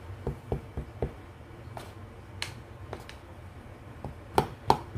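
Metal spoons stirring batter in a stainless steel mixing bowl: soft, regular knocks for about the first second, then a few scattered sharp clinks of spoon on bowl, the two loudest near the end.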